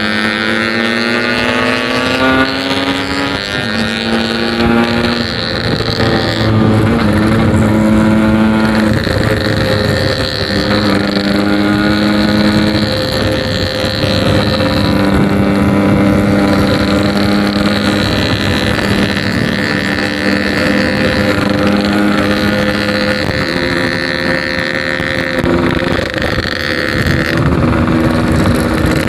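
Yamaha RX King two-stroke single-cylinder motorcycle engine running under way, its pitch rising early on and then shifting up and down in steps between steady stretches as the rider works the throttle and gears, with wind on the microphone.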